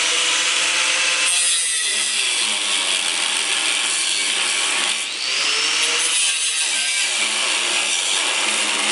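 Corded angle grinder grinding into a steel beam overhead, a loud steady abrasive screech. It lets up briefly and picks up again about five seconds in.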